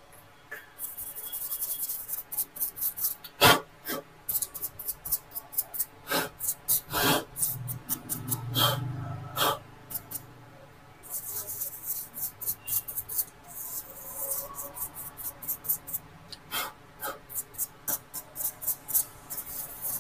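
Laptop parts being wiped clean with a cloth: quick rubbing strokes in runs, mixed with sharp clicks and knocks of handling.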